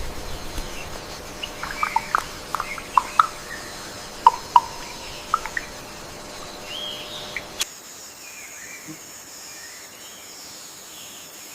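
Rainforest ambience: short, sharp bird chirps and whistles scattered over a steady high-pitched insect drone. About seven and a half seconds in, the sound cuts abruptly to a quieter stretch where the high drone remains with only a few faint calls.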